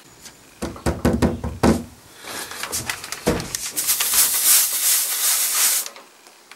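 A few knocks as a Russell Hobbs steam iron is handled and set down on a damp cloth over wood veneer, then the iron's steam hissing from about two seconds in, loudest near the end and cutting off just before it stops. The steam is being pushed into a scratch in thin veneer to swell the wood and raise the dented grain.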